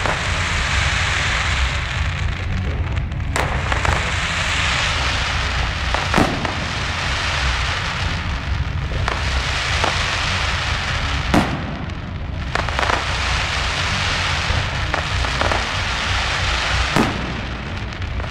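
Aerial fireworks display: shells going off in sharp bangs every few seconds over a continuous dense crackling and hissing from burning stars and comets.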